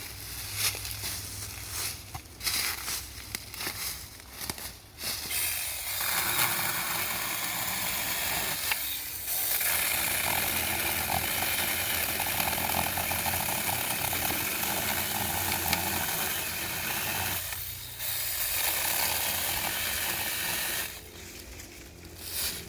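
Saker 6-inch battery-powered chainsaw cutting through hard, seasoned beech wood. A few short stop-start bursts give way to a long, steady cut, which drops out briefly twice and stops shortly before the end.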